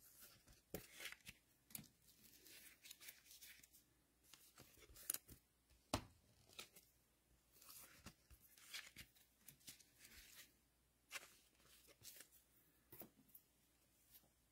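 Foil trading-card pack wrappers being torn open and cards handled: faint rustling with scattered sharp clicks, the loudest about six seconds in.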